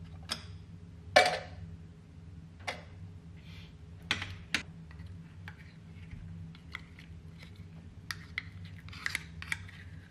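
Sharp clicks and knocks of metal food tins being handled and set down, the loudest about a second in, with a quicker run of small taps near the end, over a steady low hum.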